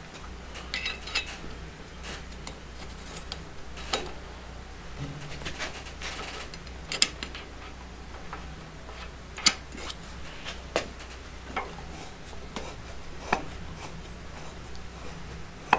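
Small metal parts clicking and clinking as a flange is turned by hand onto the threaded shaft of a buffing wheel arbor: irregular sharp clicks a second or few apart, over a low steady hum.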